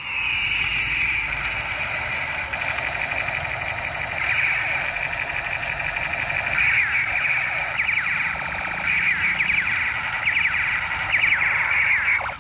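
Battery-operated toy machine gun playing its electronic firing sound effect: a continuous high electronic tone with fast repeated chirps, stopping suddenly at the end.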